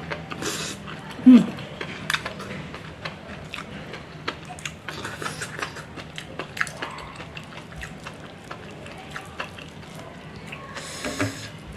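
Close-miked chewing of enoki mushroom and egg omelette, full of small wet mouth clicks, with a brief low mouth sound about a second in. Knife and fork cut through the omelette and tick against the tray.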